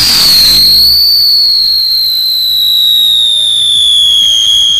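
A whistling chakri, a Diwali ground-spinner firework, spins as it burns and gives off one loud, shrill whistle that slowly falls in pitch, with a burst of hissing at the start.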